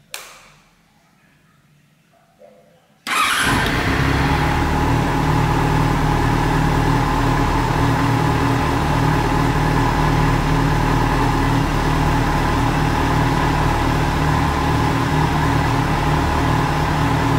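A sharp click as the start button is pressed, then about three seconds in the Yamaha FZ6N S2's 600 cc inline-four catches abruptly and settles into a steady idle. The bike is starting on the button with a newly replaced start relay.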